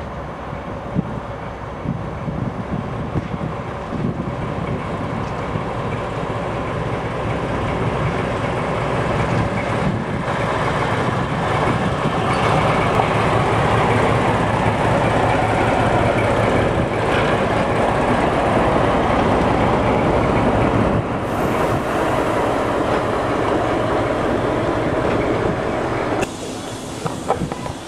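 British Rail Class 14 diesel-hydraulic locomotive D9520, with its Paxman six-cylinder engine, running into a platform at low speed. The engine grows steadily louder as it approaches and passes close by, then the coaches roll past with a few clicks near the end.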